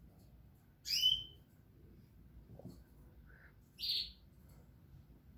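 A bird chirping: two short, high calls, one about a second in and one near four seconds, each quickly sweeping in pitch.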